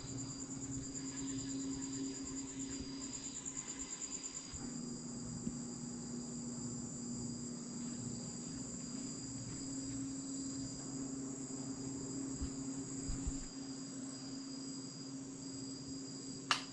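Insects trilling steadily: a high, pulsing chorus over a lower steady hum. A single click sounds near the end.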